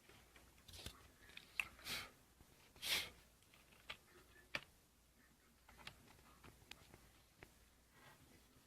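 Faint handling of laptop parts: scattered small plastic clicks and a few short scraping rustles, the two loudest around two and three seconds in.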